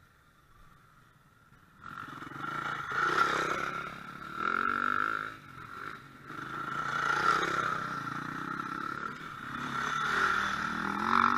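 Enduro motorcycle engine coming in about two seconds in, then revving up and dropping back in several surges as the bike rides through the corner and passes close by.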